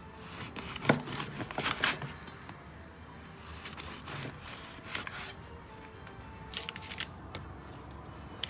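Bread knife sawing through the crisp crust of a loaf on a wooden board, with scattered crackling crunches as the blade breaks through. Soft background music plays underneath.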